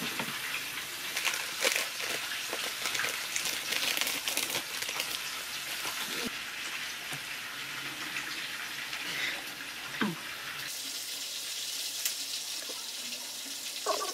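Meat sizzling in a pan, a steady hiss with scattered small crackles; the background changes abruptly twice.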